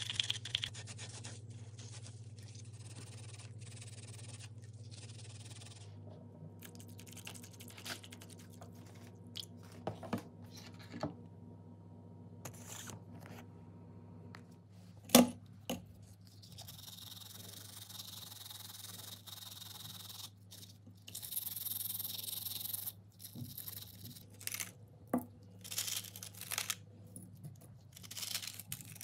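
Gloved hands scraping, rubbing and clicking small metal parts of an old electric drill while cleaning them, over a low steady hum. One sharp click stands out about halfway through, and stretches of hiss come later.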